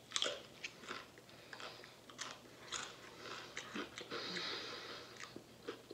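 Close-up chewing of a crisp potato chip: irregular sharp crunches, with a denser stretch of crunching about four seconds in.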